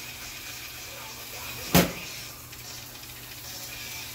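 A single sharp knock a little under two seconds in, over the steady faint hiss of burgers frying on a griddle.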